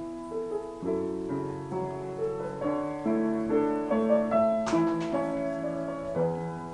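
Background piano music: a slow melody over sustained chords.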